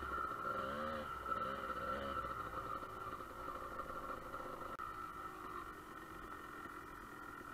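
Dirt bike engine under load, its revs rising and falling sharply in the first two seconds as it climbs a sand hill. The engine then settles to a lower, steadier note.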